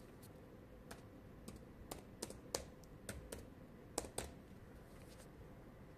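Faint typing on a laptop keyboard: about a dozen separate key clicks at an uneven, hunt-and-peck pace as a short message is typed in.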